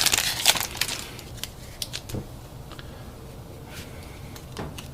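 A foil trading-card pack wrapper crinkling, fading out in the first second. Then a few light, scattered clicks and rustles of cards being handled.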